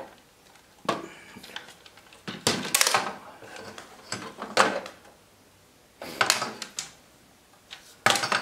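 Plastic back panel of a mini fridge being worked loose and lifted off by hand: several separate plastic knocks, scrapes and rattles with short pauses between them.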